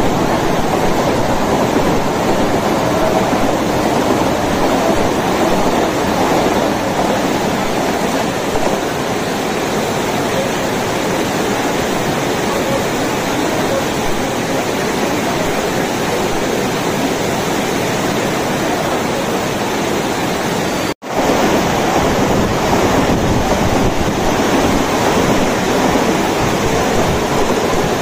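Heavy rain pouring steadily in a dense, even hiss, with some wind on the microphone. The sound drops out for an instant about three-quarters of the way through.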